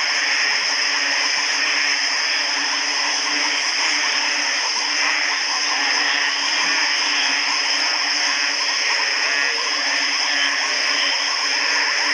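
Dense night chorus of many frogs calling at once, short calls overlapping without a break, over a steady high-pitched drone.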